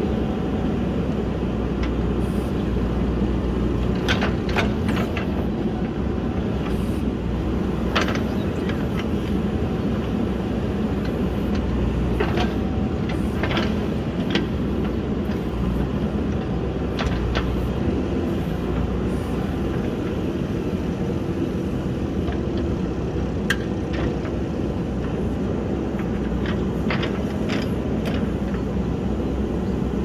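JCB backhoe loader's diesel engine running steadily under load as the rear backhoe arm digs, with short knocks now and then from the bucket and arm working the dirt.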